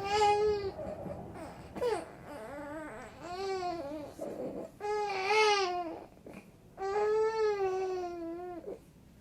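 Baby crying and fussing in a run of short, wavering cries, about six of them with brief pauses between, the longest nearly two seconds.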